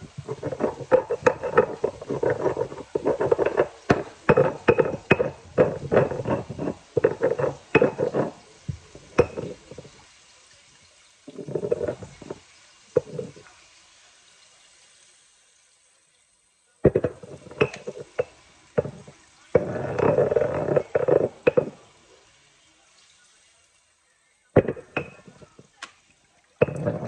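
Stone mortar and pestle (molcajete and tejolote) grinding garlic and spices: rapid stone-on-stone grinding and pounding strokes. Midway the strokes stop while the mortar is tipped over a pot and its contents poured in, then the grinding starts again in shorter runs.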